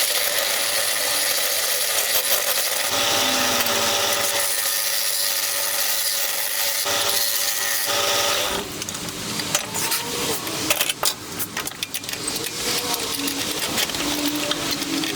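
A woodworking power tool running and cutting wood. There is a steady machine hum with cutting noise for about eight and a half seconds, then it turns quieter and more broken, with scattered clicks and scraping.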